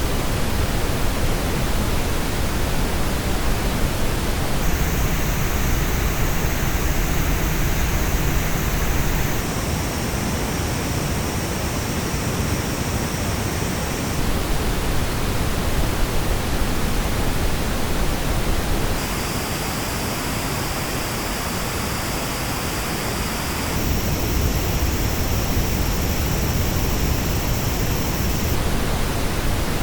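Steady pink-noise test signal heard through Superlux headphones, its tone colour switching about every five seconds as different headphone models take turns, some blocks with the treble noticeably notched and uneven.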